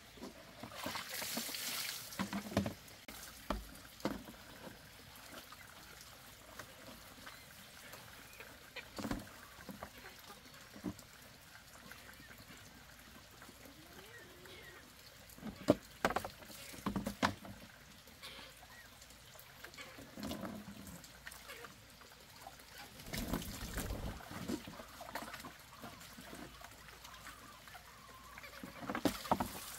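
Intermittent splashing and trickling water, with scattered sharp clicks and knocks of handling.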